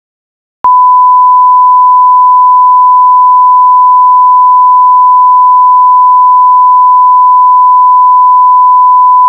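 Loud, steady 1 kHz line-up test tone of the kind that goes with SMPTE colour bars. It begins abruptly out of silence about half a second in and holds one unchanging pitch.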